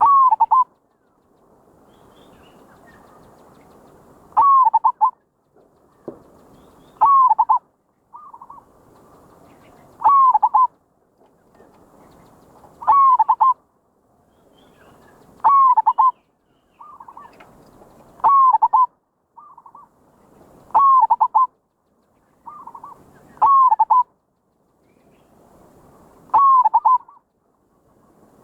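Zebra dove (merbok) cooing call, repeated about ten times at even spacing of roughly every two and a half to three seconds, each a short phrase of quick curved notes, with a faint hiss between calls.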